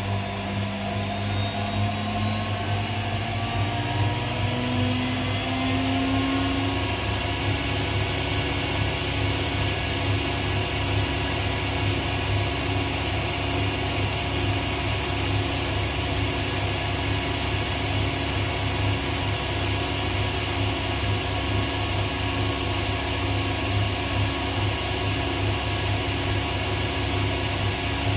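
Hotpoint Aquarius WMA37 washing machine on a test spin. The motor and drum wind up with a rising whine over the first several seconds, then hold a steady high-speed spin. The bearings don't sound too bad, which the owner takes to mean they might be okay.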